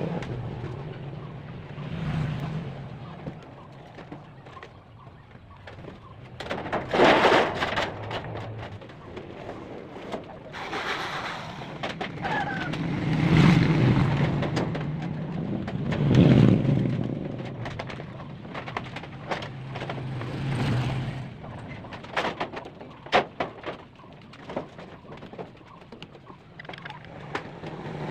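Long-span corrugated metal roofing sheets being shifted and laid on a roof: several loud rumbling, rattling swells as the sheets flex and slide, and scattered sharp knocks and clicks, a cluster of them near the end.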